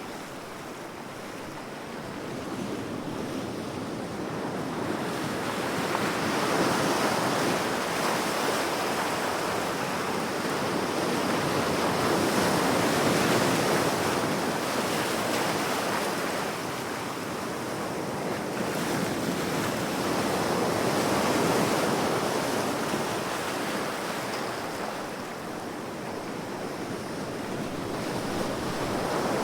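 Ocean surf: waves breaking and washing in a continuous rush that swells and eases slowly every several seconds, with some wind noise.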